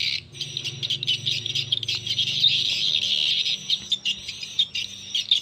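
Recorded young edible-nest swiftlet calls, the 'tarik senja' lure track, played through horn tweeters of a swiftlet-house amplifier: a dense, continuous high-pitched chirping and twittering.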